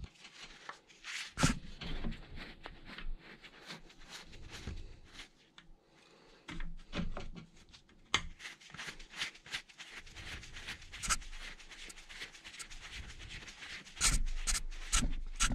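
Hand screwdriver turning a screw into an e-scooter's metal rear mounting plate: irregular small clicks, scrapes and rattles, with a few louder knocks near the end.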